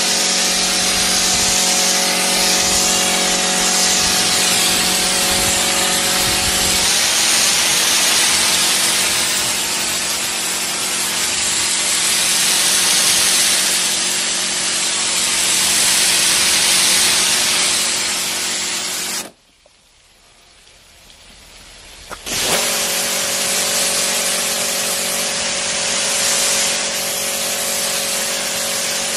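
Pressure washer spraying: a steady hiss of the water jet over the hum of its pump motor. Both cut out for about three seconds about two-thirds of the way through, then start again.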